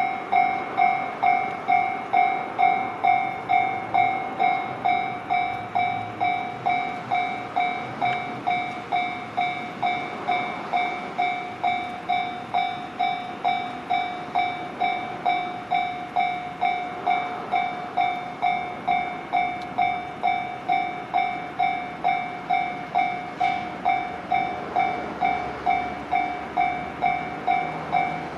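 Japanese railroad crossing alarm bell ringing at the JR Chuo Line's Dai-1 Hamazawa crossing. It gives a steady, even run of single ringing strikes, a little under two a second, each fading before the next.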